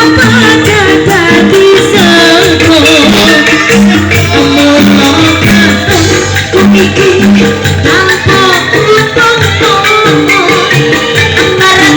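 Live campursari music from an angklung ensemble, amplified through a hajatan sound system: bamboo angklung rattles and percussion over a repeating bass line, with a wavering melody above.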